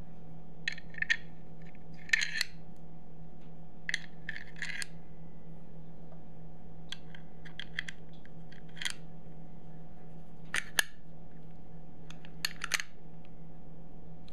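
Replica rifle cartridges clicking and clinking as they are dropped one at a time into the slotted tubular magazine of a zinc-alloy Denix replica Volcanic repeating pistol: about seven short clusters of sharp metallic clicks, over a steady low hum.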